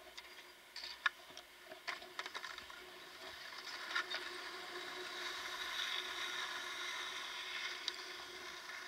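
A few sharp knocks and clicks as skis come off the chairlift onto the unloading ramp, then the steady hiss of skis sliding on packed snow, growing louder from about four seconds in.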